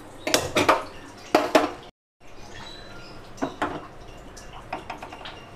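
Stainless steel pots clinking and knocking as they are handled on a gas stove, in two quick bunches of metal clatter in the first two seconds and a lighter clink about three and a half seconds in. The sound drops out for a moment just before two seconds.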